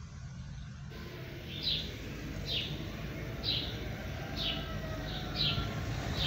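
Low rumble of a car driving, heard from inside the cabin. From about a second in, a bird chirps over it again and again, short high chirps about once a second.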